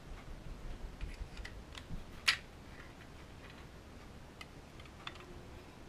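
Faint, scattered clicks of Barnett clutch friction discs and steel plates being slid onto the clutch basket of a Honda CB350 engine, with one sharper click about two seconds in.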